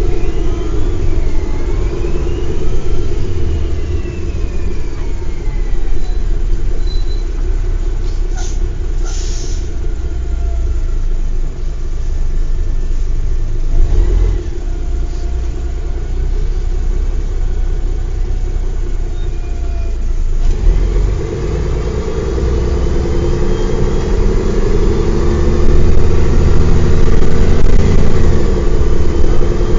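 Mercedes-Benz O405 bus engine and gearbox running, with whines that rise and fall in pitch as the bus speeds up and changes gear. The engine gets louder about two-thirds of the way in as it pulls harder.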